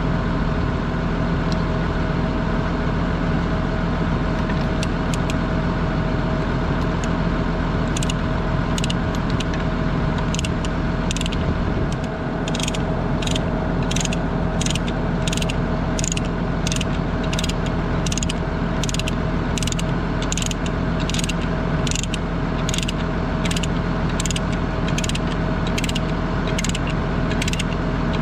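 A ratchet chain binder clicking at an even pace, about one and a half to two clicks a second, as its handle is worked to tighten a chain; the clicking starts about eight seconds in. Under it a diesel engine idles steadily.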